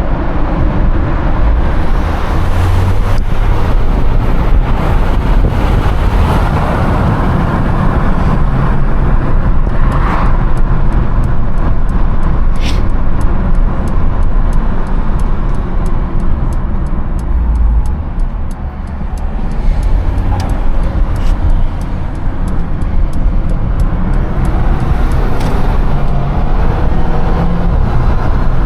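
Twin-charged Mercedes driving, its engine and road noise buried under heavy wind on the microphone, with a brief drop in level about two-thirds of the way through.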